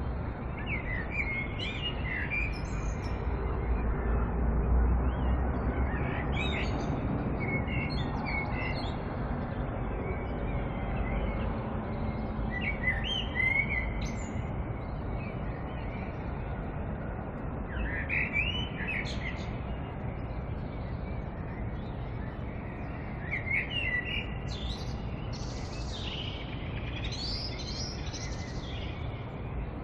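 Birds chirping in short clusters of calls every few seconds, over a steady hiss of outdoor ambience. The calls are busiest near the end.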